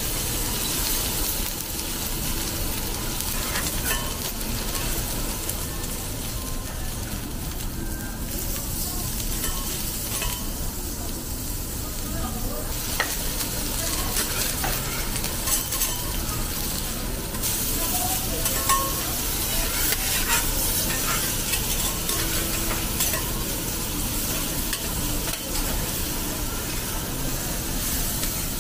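Beef steak and lamb chop sizzling steadily on a hot steel teppanyaki griddle. Metal utensils now and then click against the plate and the meat.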